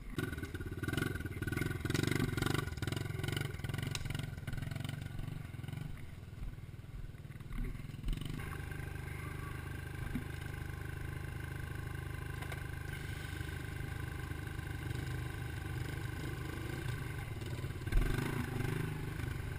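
Dirt bike engine starting abruptly and revving unevenly for several seconds, then settling into a steady run, with a short burst of throttle near the end as it pulls away.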